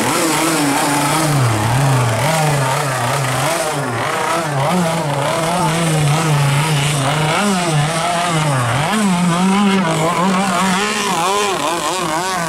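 Engines of mini racing speedboats running hard, the engine pitch wavering up and down throughout.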